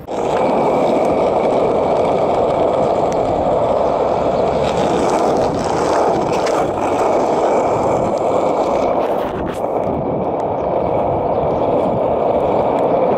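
Skateboard wheels rolling over coarse asphalt: a loud, steady rumble that eases briefly about two-thirds of the way through.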